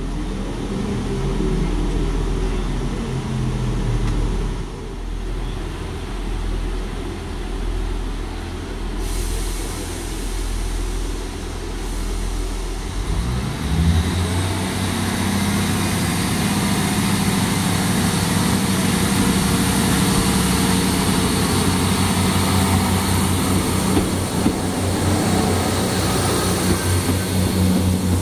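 Class 158 diesel multiple unit idling at the platform with a low engine hum; about halfway through its diesel engines open up with a rising note as it pulls away, then hold a steady, louder drone as the train draws past.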